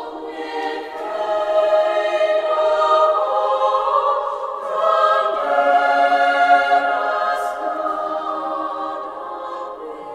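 Choir singing slow, sustained chords without words being spoken, swelling in loudness about a second and a half in and again about five seconds in.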